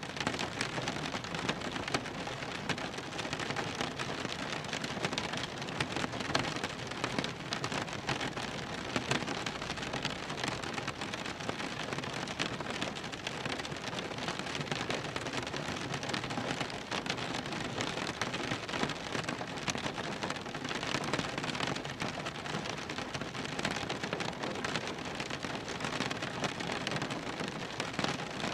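Rain falling on a car's body and glass, heard from inside the cabin: a steady, dense patter of drops.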